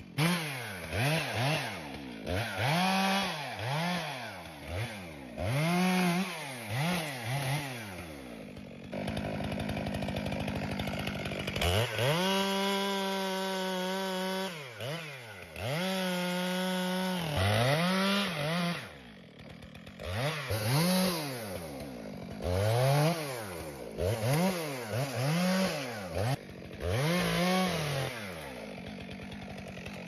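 Stihl MS 462 two-stroke chainsaw revved up and down in quick throttle bursts, about one a second. Near the middle it is twice held at full revs for two or three seconds at a time.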